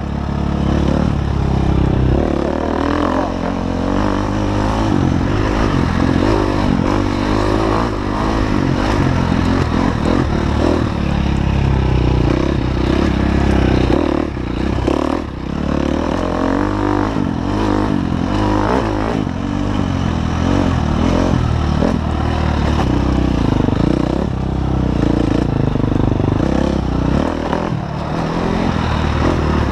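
Off-road dirt bike engine heard from the rider's helmet, revving up and down constantly as it is ridden hard along a rough trail, with the revs dropping briefly about halfway.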